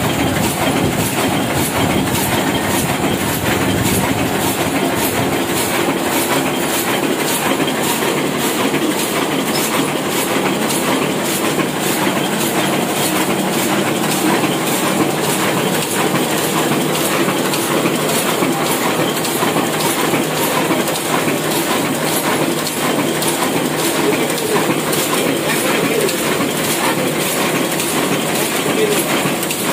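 An old Hashimoto sheetfed offset printing press running at speed and feeding sheets, making a loud, steady mechanical clatter that repeats evenly, about one and a half strokes a second.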